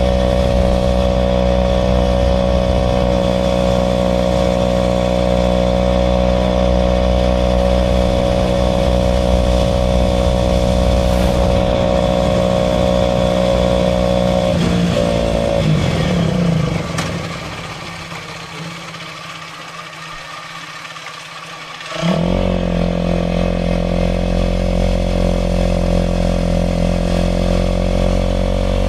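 Aprilia RS4 125's single-cylinder 125 cc four-stroke engine running at a steady speed, then dropping in pitch about fifteen seconds in and falling much quieter for about five seconds before coming back suddenly and running steadily again.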